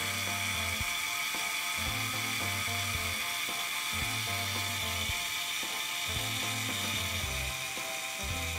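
Mechanical self-timer of a Canon Demi EE17 half-frame camera running down with a steady whir, counting down to the shutter release. Background music with a low bass line plays underneath.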